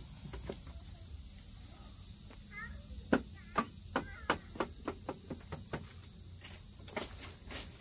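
Insects droning steadily in a high, continuous trill. Through the middle of it comes a run of sharp knocks, about three a second.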